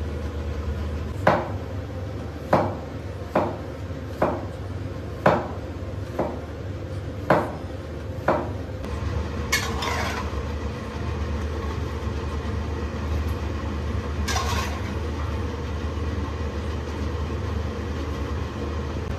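A metal spatula clinks against a wok and a ceramic plate about eight times, scooping boiled shrimp out of the water onto the plate. Two softer, longer scrapes come in the second half, over a steady low hum.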